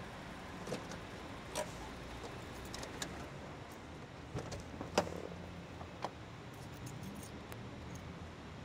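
Several scattered clicks and knocks from a parked sedan as its driver gets out: the door latch opening and the door swinging open, the sharpest click about five seconds in.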